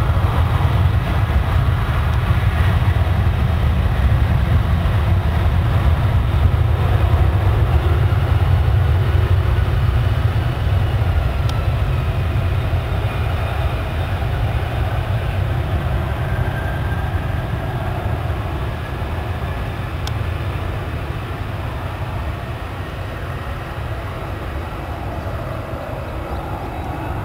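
Jet engines of a four-engined Japan Airlines Boeing 747 at takeoff thrust, heard from a distance as a steady low rumble with a faint whine above it, easing somewhat over the second half as the jet lifts off.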